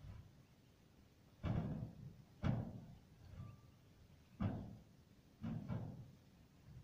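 Dull thumps and scrapes from shovelling thick volcanic ash off a tiled roof, about five of them, each short and spaced a second or two apart.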